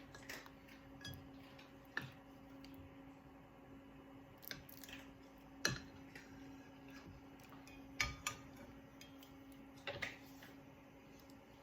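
Faint kitchen handling sounds: a few light, scattered knocks and clicks of a utensil and pan, about seven in all, over a steady low hum, while butter heats in a pan on a stovetop burner.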